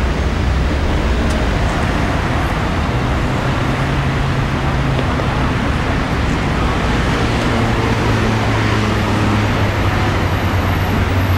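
Steady city road traffic: a continuous rush of passing cars with the low hum of larger vehicle engines coming and going.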